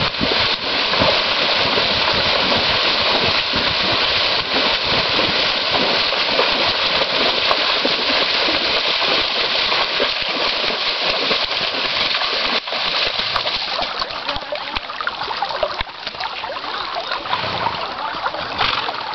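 Horses wading through a deep creek, water splashing continuously around their legs. The splashing thins out and gets quieter in the last few seconds.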